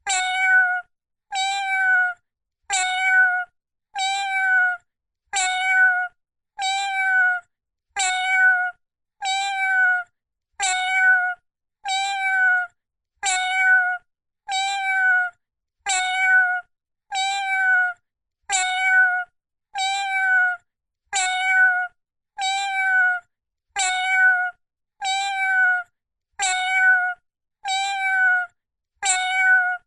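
Cartoon kitten begging sound effect: the same short, high kitten meow repeated at an even pace, about once every second and a third, with silent gaps between the calls.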